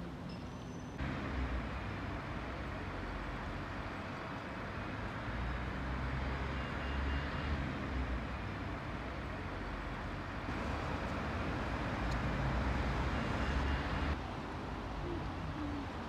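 Steady outdoor background noise with a low rumble, the ambience of a riverside town. It changes abruptly about a second in and again near the end.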